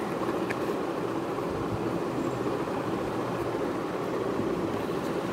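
Steady low background hum, with a few faint ticks and rustles of trading cards and their foil pack being handled.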